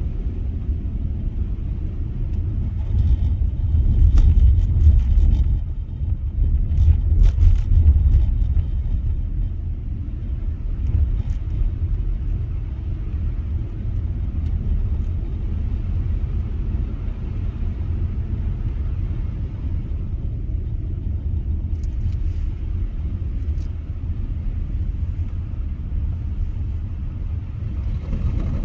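Steady low road rumble of a car driving on a snow-covered road, heard from inside the car. About four and seven seconds in it grows louder for a moment, with knocks and rattles as the car rides over rougher patches.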